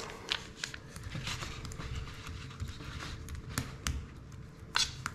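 A metal spoon spreading tomato paste over raw pizza dough in a pizza pan, after the paste is squeezed from a foil sachet: soft scraping and smearing with scattered sharp clicks.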